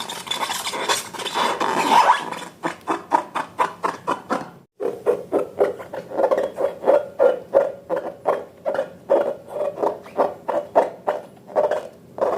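Slime being squished and worked by hand: a steady rubbing sound for the first two seconds, then a fast run of sticky clicks and squelches, about three a second, with a brief break a little before the middle.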